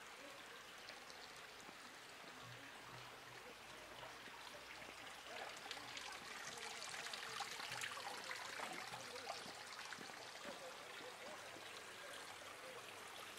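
Water splashing and trickling, made up of many small drips and splashes, growing louder about five seconds in and easing off again after about ten seconds.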